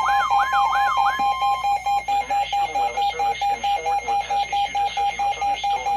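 Weather radio alert alarm beeping rapidly, about four beeps a second, signalling a severe thunderstorm warning. For the first second or so it is joined by a warbling siren-like sweep and a steady tone, which stop. From about two seconds in, a voice begins faintly under the beeps.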